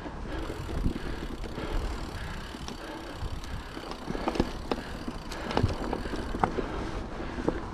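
Mountain bike rolling over a trail: steady tyre and rushing noise, with scattered sharp clicks and rattles from the bike, more of them from about four seconds in.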